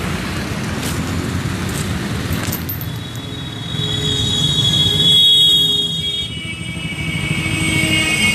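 Street traffic: a steady rumble of vehicle engines and road noise, with a high steady tone from about three and a half seconds in to about six seconds, and another near the end.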